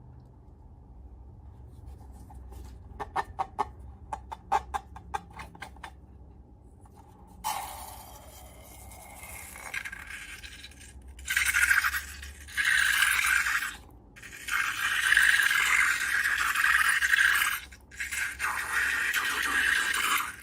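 Hands-on slime-making sounds: a quick run of sharp clicks, then several long scratchy, hissing stretches of a second or more each, broken by short pauses.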